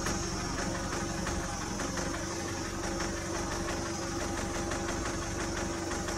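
A vehicle engine idling steadily, with a constant high-pitched buzz running over it.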